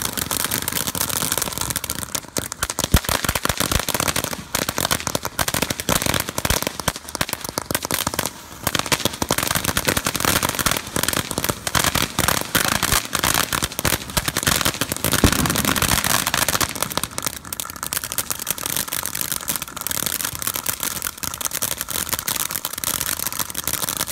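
Ground fountain firework spraying sparks: a steady hissing rush full of rapid sharp crackling pops, with a few louder cracks near 3 and 15 seconds in.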